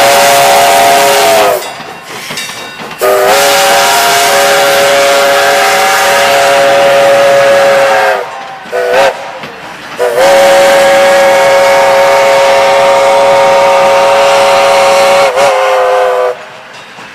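Step-top five-chime steam whistle on FWWRR steam locomotive 2248, sounding a chord of several steady tones in separate blasts: the end of a long blast, then a long one, a short one and a final long one. This long-long-short-long pattern is the standard grade-crossing signal. The chord sags in pitch as each blast is shut off.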